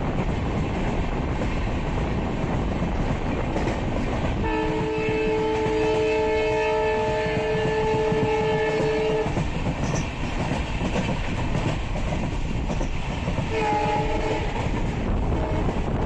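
Train running with a steady rumble of wheels on rail, and the WDP4B diesel locomotive's multi-tone horn sounding: one long blast of about five seconds starting some four seconds in, then a short blast near the end.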